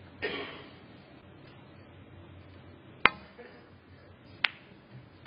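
Snooker safety shot: a sharp click as the cue strikes the cue ball, then about a second and a half later a higher, crisper click as the cue ball hits an object ball.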